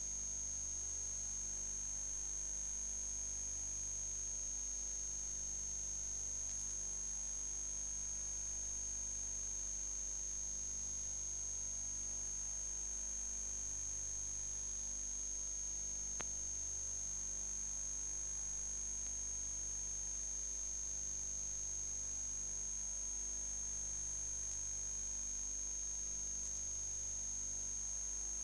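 Steady high-pitched electronic whine over a low electrical hum, unchanging throughout, with one faint click about sixteen seconds in; no sound from the drill itself can be made out.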